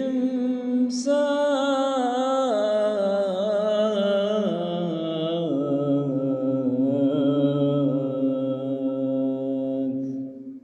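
A man chanting one long, ornamented phrase of Islamic mosque chant, his voice wavering up and down in pitch and held for about ten seconds before it fades out.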